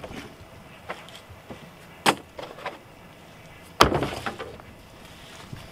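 Tools and gear being set down in a pickup truck bed on its ridged liner: a few sharp knocks and clatters, the loudest about two seconds in and again near four seconds.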